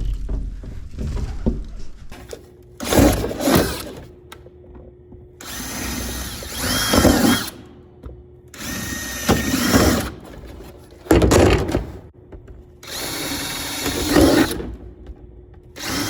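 Power drill run in about five bursts of one to two seconds, its motor whine rising and falling with each pull of the trigger, drilling holes in the bottom of a plastic cooler.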